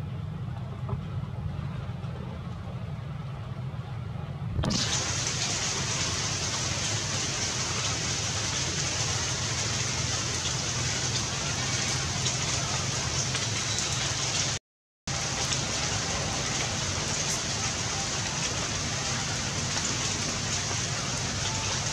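Rain falling on wet pavement and puddles: a steady hiss that starts abruptly about five seconds in, after a low steady rumble. The sound cuts out completely for a moment about fifteen seconds in.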